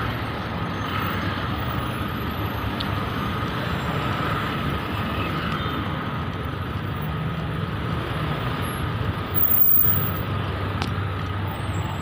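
Steady city road traffic: car and motorcycle engines running with tyre noise as vehicles crawl past.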